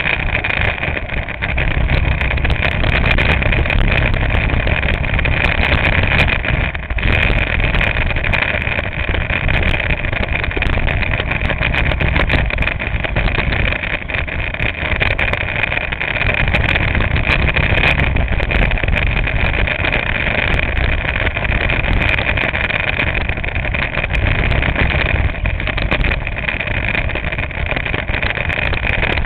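Go-kart engine running continuously through a lap, a steady loud drone that eases briefly about seven seconds in.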